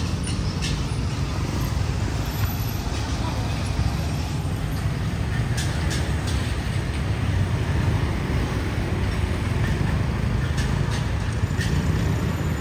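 City street traffic: motorbikes, tuk-tuks and cars passing in a steady rumble, with people's voices in the background.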